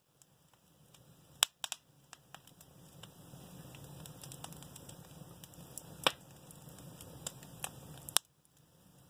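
Wood fire in a fireplace crackling over a low, steady background, with scattered sharp pops. The loudest pops come about a second and a half in and again around six seconds.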